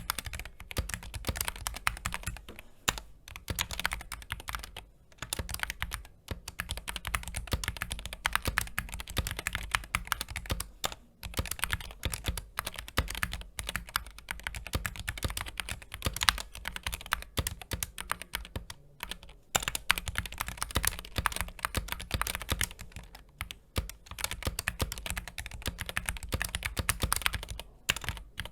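Continuous fast typing on a computer keyboard, a dense run of key clicks broken by brief pauses every few seconds.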